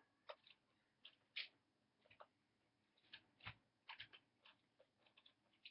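Faint, irregular small clicks and taps of the plastic battery compartment and AA batteries of a Simon Trickster toy being handled as the batteries come out.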